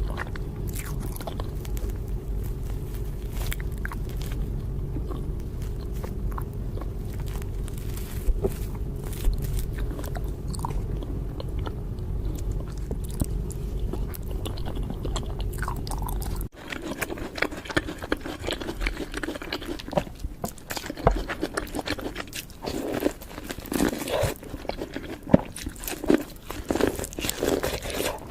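Crunchy food being bitten and chewed close to the microphone. A steady low hum lies under the first part; about two-thirds of the way through it drops out, and the crunching comes in repeated, sharper bursts.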